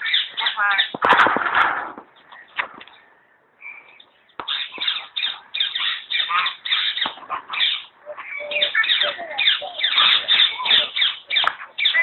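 Common hill myna calling: fast runs of chattering and whistled notes, with a short lull about three seconds in.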